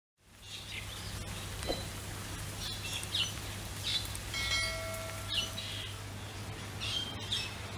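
Outdoor garden ambience of birds chirping in short calls that repeat about every second, over a steady low hum. A brief held whistle comes near the middle.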